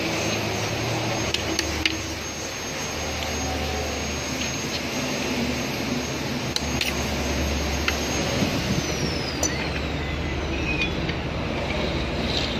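Steady rushing background noise with a low hum, broken by a few sharp metal clicks of tools and parts as the crankshaft bearing caps of a stripped engine block are handled.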